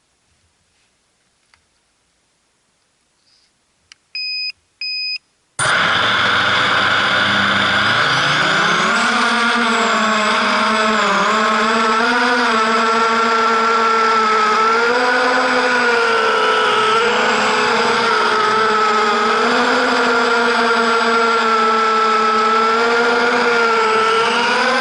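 Two short beeps, then the brushless motors of a 250-size FPV racing quadcopter start abruptly and whine loudly, as heard from the onboard camera. The pitch climbs as it takes off and then wavers up and down with the throttle.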